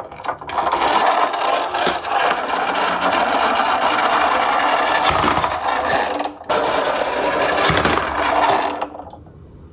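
Plastic toy garbage truck rolling along, its geared drive giving off a loud, continuous whirring rattle. The sound breaks off sharply about six seconds in, starts again straight away, and fades out near the end.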